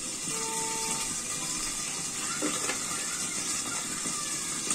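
A steady, even hiss, with a short low hum about half a second in.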